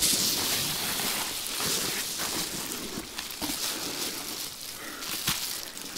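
Reflectix foil-faced bubble insulation sheet rustling and crinkling as it is turned over and laid flat, with a sharp crackle about five seconds in.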